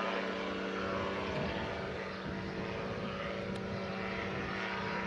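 Gyrocopter flying past overhead, its engine and pusher propeller running steadily at an even pitch.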